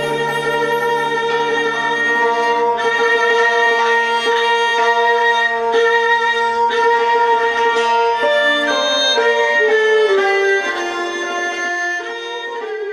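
Music led by a violin playing a slow melody of long held notes, getting quieter near the end.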